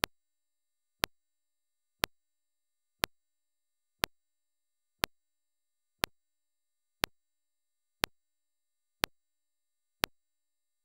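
Sharp electronic ticks exactly once a second, eleven in a row, with near silence between them: the trail camera's own recording noise.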